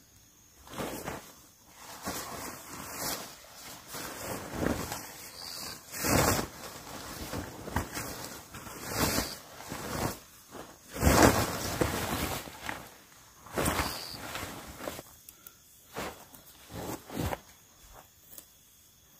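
Nylon rainfly of a Coleman Darwin 3+ tent rustling and swishing in irregular swells as it is dragged and thrown over the dome tent, loudest about halfway through, then a few short handling sounds as it is fixed down at a corner.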